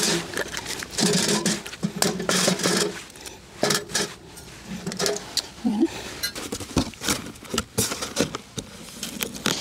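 Irregular knocks and metallic clatter as things are put into the stainless-steel firebox of a Winnerwell camping wood stove and its door is shut.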